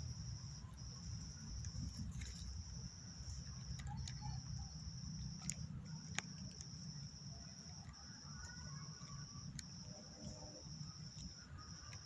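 A cricket trilling at night in long, steady high-pitched stretches of a second or two, broken by short gaps, over a constant low rumble. A couple of sharp clicks sound past the middle.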